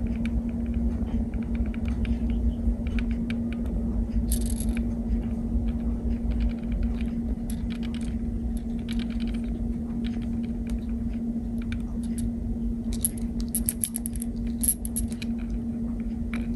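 Megabass Taco-Le Shake 90 octopus lure shaken in the hand, rattling in quick bursts of clicks, with one strong burst about four seconds in and a run of bursts near the end. A steady low hum runs underneath.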